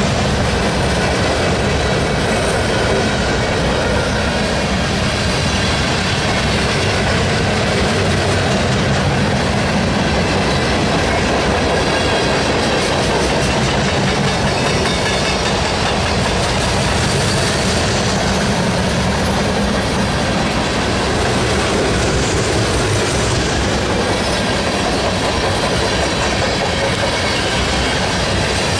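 Freight cars (boxcars, a loaded centerbeam lumber flatcar and tank cars) rolling past close by: a loud, steady rumble of steel wheels on rail with fine rapid clicking as the wheels cross rail joints, and faint high ringing tones above it.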